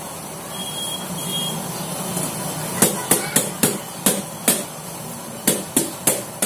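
Hands knocking on the top of an upturned stainless steel bowl sitting on a steel plate, to release the steamed khaman cake inside onto the plate. Sharp metallic knocks: a quick run of about six starting a little before halfway, then four more near the end.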